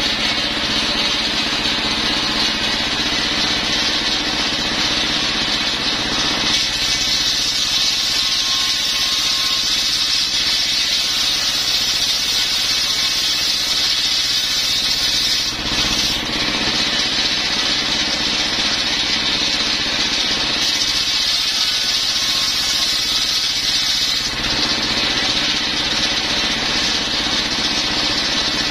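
Single-cylinder stationary diesel engine running steadily, belt-driving a large circular saw blade that rips a plank off a coconut-wood log, with a constant high whine from the blade over the engine's hum.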